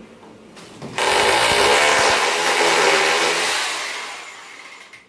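Corded electric drill running at full speed, starting suddenly about a second in and holding for about two and a half seconds, then winding down.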